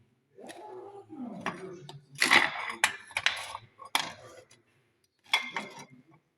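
Metal clinks and clanks of tools and car suspension parts being handled, loudest a little over two seconds in and again near the end. Before them comes a drawn-out pitched sound that falls in pitch as it ends.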